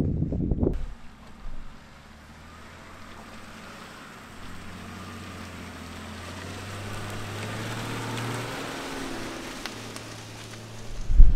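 Ineos Grenadier 4x4's engine running at low revs as it crawls over rough ground: a low, steady hum that grows louder to about eight seconds in, then eases off. A loud rush of noise cuts off about a second in.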